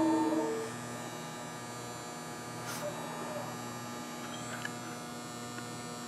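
A steady hum made of several constant tones, with a short tone sounding briefly at the start.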